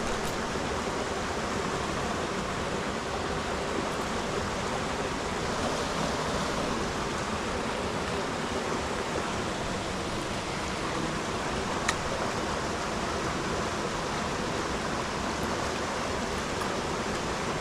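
Creek water rushing steadily over rocks. A single sharp click about twelve seconds in.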